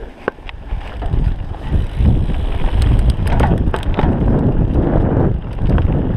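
Wind rumbling on the microphone and a mountain bike rattling as it rolls down a dirt trail, building up about two seconds in, with scattered clicks and knocks from the bike.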